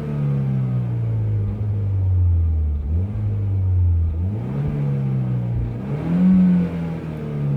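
Peugeot 208 GTI's 1.6-litre turbocharged four-cylinder engine under way, its revs sinking, then climbing quickly about three seconds in, again past four seconds and again near six seconds, and sinking once more after each.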